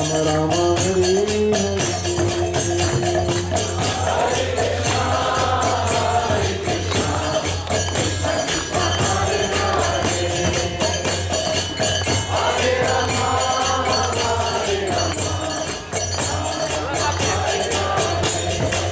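Devotional group chanting (kirtan) over a steady, fast beat of jingling hand percussion; the voices sing in phrases with short gaps between them.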